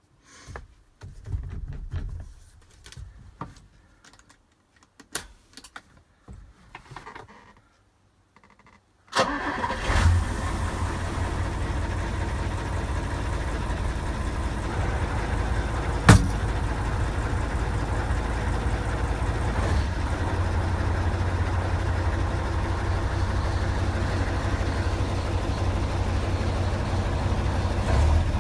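Mercedes-Benz OM 403 V10 diesel in a Mercedes-Benz 1932 truck starting up, heard from the cab. After several seconds of irregular knocks and rustles, the engine fires about nine seconds in and settles into a steady idle. A single sharp click comes partway through the idle.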